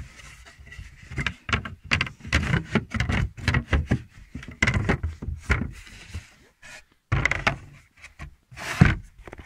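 The wooden lid of a camper's under-seat storage compartment being handled and closed: a run of wooden knocks and thumps, the loudest near the end.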